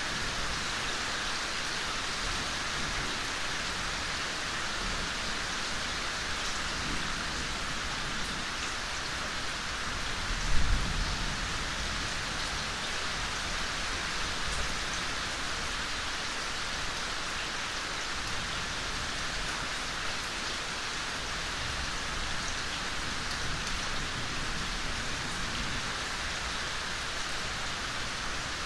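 Steady soft rain falling, an even hiss of drops. A brief low thump comes about a third of the way in.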